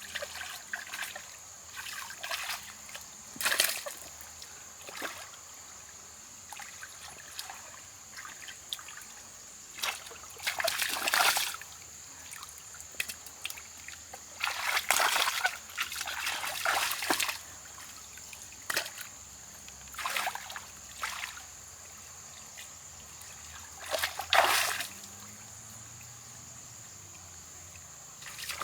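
Water splashing and sloshing in irregular bursts, a few of them longer and louder, as someone works in muddy water. A steady high insect drone runs underneath.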